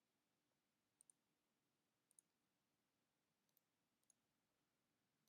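Near silence with a few faint computer mouse clicks, a quick pair about a second in and single clicks after.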